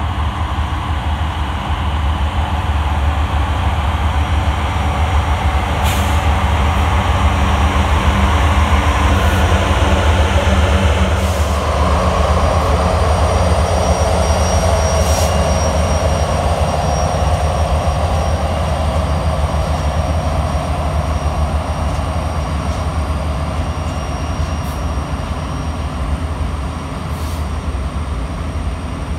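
Norfolk Southern distributed-power diesel locomotives in the middle of a heavy freight train rolling past in dynamic braking: a loud, steady low engine rumble with the rush of the train, then freight cars rolling by on the rails. A few sharp clanks come through, and a thin high squeal sets in about halfway.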